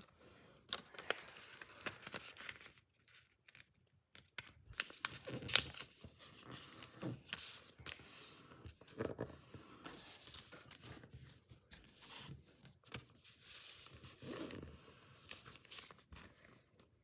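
A sheet of origami paper being folded by hand: irregular rustling and crinkling as the flaps are lifted and turned, with short sharp swipes as creases are pressed flat with the fingers.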